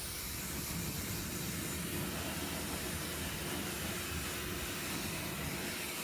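Pressure washer jet spraying water onto a car's alloy wheel, tyre and the concrete beneath: a steady, even hiss of water.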